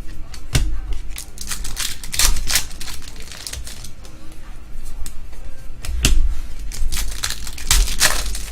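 Trading cards being handled and flipped through by hand: an irregular run of papery clicks and swishes.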